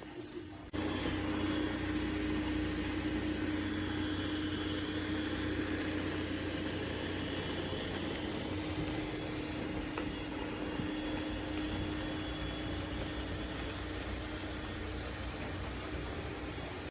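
A MOVA P50 Pro Ultra robot vacuum's motor switches on suddenly and runs steadily: a whooshing hiss over a low hum and a steady mid-pitched tone, easing off slightly toward the end.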